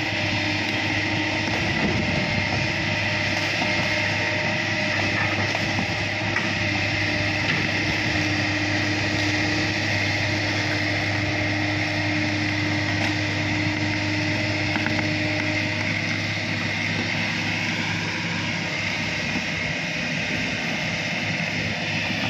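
Tracked excavator's diesel engine running steadily as the machine works, with a constant high whine over the low drone. A lower hum in the engine note drops out about two-thirds of the way through.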